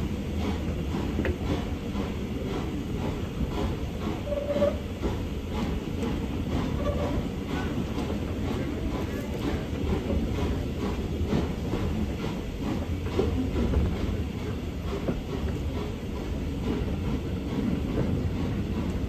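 Steam-hauled passenger train running along the line, heard from a carriage: a steady low rumble of the carriages' wheels on the track, with some clickety-clack.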